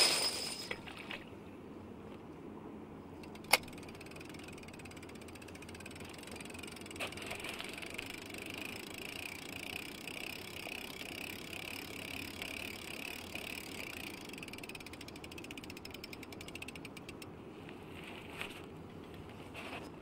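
A saltwater fishing reel being cranked, its gears ticking rapidly for about ten seconds in the middle, the whir swelling and fading in a quick regular rhythm. It opens with a short loud burst and one sharp click a few seconds in.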